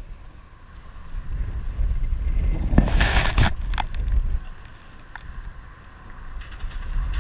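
Wind buffeting the microphone: a low rumble that swells through the middle for a few seconds, with a brief hiss and a few light knocks.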